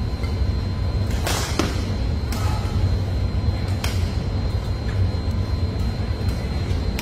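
Badminton rackets striking the shuttlecock in a rally: sharp cracks a second or so apart, three plain ones and a fainter fourth, over a steady low rumble of the sports hall.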